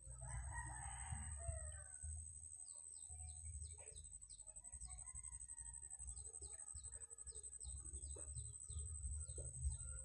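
A rooster crows once near the start, the call lasting about a second and a half and falling at its end, over a steady high-pitched drone of insects. Short, quick falling chirps follow later, with a low uneven rumble underneath.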